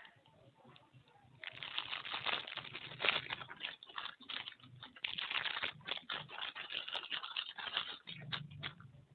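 Thin clear plastic bag crinkling and rustling as hands open it and peel it back. The crackling starts about a second and a half in, runs densely and dies down near the end.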